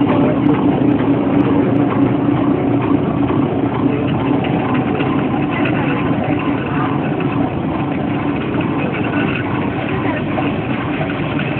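Steam traction engines running as they drive slowly past in a procession, a steady mix of engine noise.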